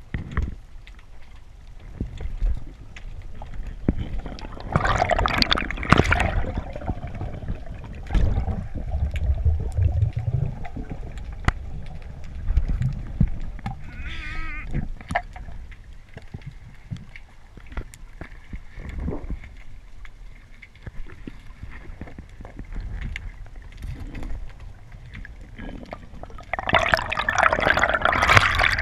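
Underwater sound of a freedive: a low wash of water movement with scattered clicks and crackles, a short rush about five seconds in, and a louder gush of air bubbles near the end.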